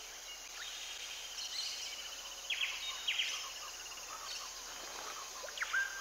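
Natural ambience of birds and insects: a steady high insect hiss with a rapid trill, and a few sharp bird chirps, a pair about halfway through and another near the end.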